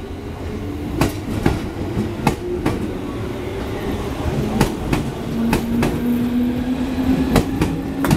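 JR East 205 series electric train pulling out along the platform: the wheels clack over the rail joints in paired beats as each bogie crosses, over a steady running rumble. The motor hum rises slowly in pitch through the second half as the train gathers speed.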